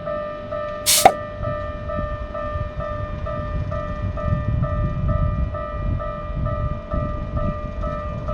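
Japanese railroad crossing's electronic warning bell ringing in a steady two-tone pulse, about two and a half rings a second, meaning a train is due. About a second in comes one sharp, loud burst, and from about four seconds in a low rumble builds beneath the bell.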